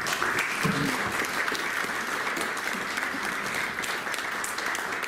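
Audience applauding, a dense, steady clapping that starts all at once.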